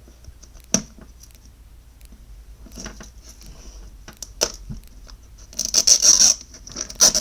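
Plastic toy packaging being handled and torn open: scattered crinkling and scratching, a sharp click under a second in, and a louder stretch of tearing and crinkling at about six seconds.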